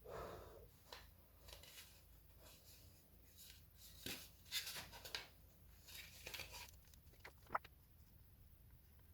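Faint scraping and rubbing, a few short strokes, with a soft thud at the start and small sharp clicks near the end.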